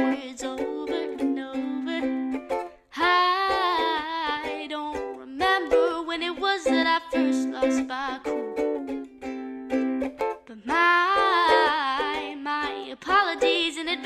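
Background song with plucked strings and a sung vocal line coming in phrases.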